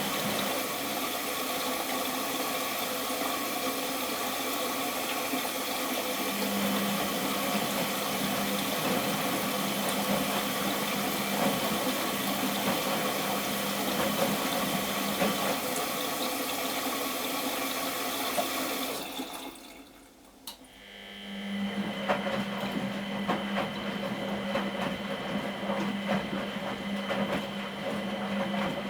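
1993 Miele Professional WS 5426 washing machine running with water rushing in, a steady hiss over a low hum. About nineteen seconds in the sound drops away for a couple of seconds, then the machine's hum resumes with less hiss.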